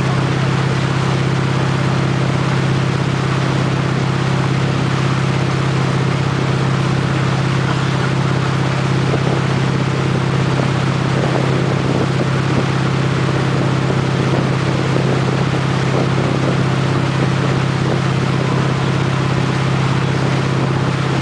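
Motorboat engine running steadily at towing speed, a constant low drone, with the rush of churning wake water.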